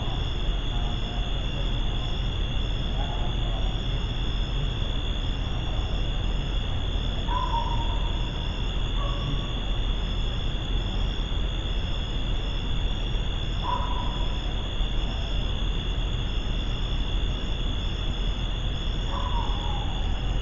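Night insects chirring steadily in a high, pulsing drone over a constant hiss, with four short, slightly falling calls from an animal or bird spread across it.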